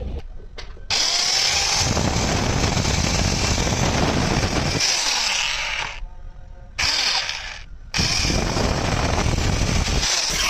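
Hand-held power drill running at speed, boring into rust-packed bolt holes in a diesel engine casting. It starts about a second in and cuts out twice for a moment past the middle.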